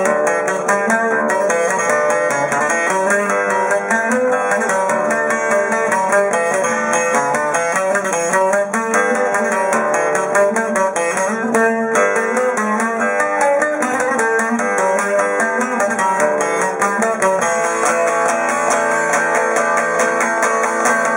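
Cretan lute (laouto) played with a long plectrum: a continuous, quickly picked melody on its four courses of paired metal strings.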